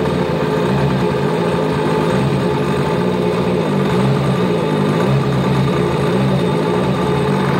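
Rebuilt Yamaha 1100 four-stroke engine running at a steady idle on a stand, out of its boat, just after its first start following the rebuild. Its pitch wavers slightly up and down.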